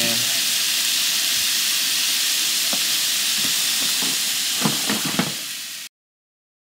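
Ground meat sizzling steadily in a nonstick frying pan on a two-burner propane camp stove, with a few light clicks from about four and a half seconds in. The sizzle cuts off suddenly near the end.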